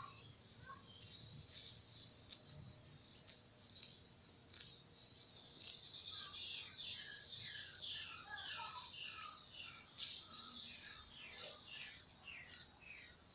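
A steady high-pitched insect trill, with birds calling in many short falling chirps, most of them in the middle stretch.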